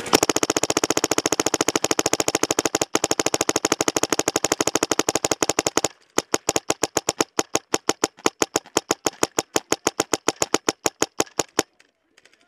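Dye DM14 paintball marker firing a long rapid string of shots. It fires very fast for about six seconds, then keeps firing at a slightly slower even rate and stops about a second before the end.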